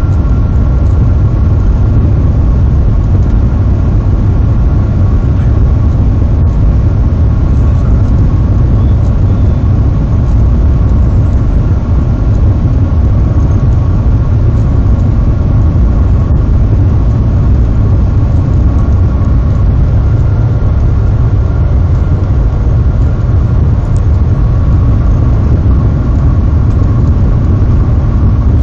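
Cabin noise inside the Shanghai Maglev train running at high speed: a loud, steady low rumble with two faint, steady higher tones above it.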